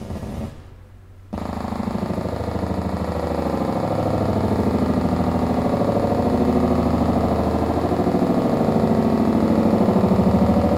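Experimental electronic noise piece generated from yeast fermentation reactions, played over loudspeakers. A pitched passage dies away, then about a second in a dense, rapidly fluttering noise texture starts abruptly and slowly swells.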